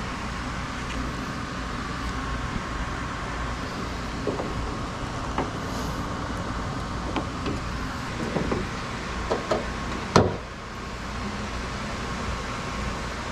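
Steady vehicle rumble with scattered light knocks and clicks, and one sharp loud thump about ten seconds in.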